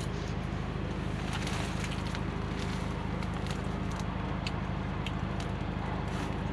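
A steady low mechanical hum with scattered light clicks and crackles over it.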